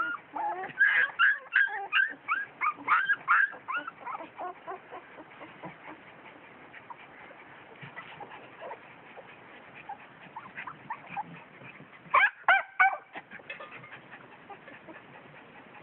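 Tiny puppies yelping and whimpering: a rapid run of short high-pitched yelps in the first few seconds, scattered faint whimpers, then a quick flurry of yelps about twelve seconds in.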